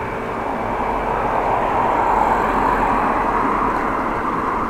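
Steady rushing noise of a bicycle rolling along an asphalt bike lane, heard through a handlebar-mounted action camera; it swells a little around the middle.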